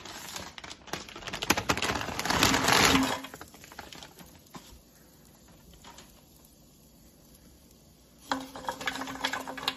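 Frozen French fries poured into an air fryer basket: a dense clattering rattle lasting about three seconds. After a quieter stretch with a few stray clicks, more clicking comes near the end as the fries shift, over a low hum.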